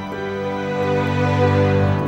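Slow instrumental outro music with held, layered chords.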